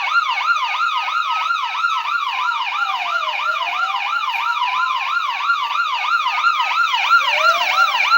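Recorded siren sound effect played through a radio's loudspeaker as a homemade door alarm, set off by the door opening. A fast yelp of about three sweeps a second runs over a slower wail that falls in pitch, then rises again near the end.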